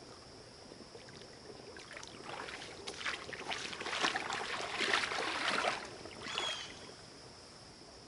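Rubber boot-foot waders sloshing through shallow river water as an angler wades a few steps, with splashes starting about two seconds in, loudest around the middle, then stopping.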